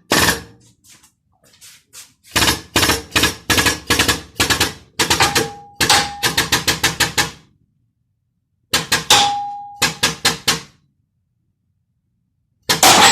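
Hammer blows on a steel mandrel, driving a new rubber-metal bushing into a front suspension control arm: fast series of sharp metallic strikes in bursts, several of them leaving a short ring, with a pause of about a second and a half past the middle.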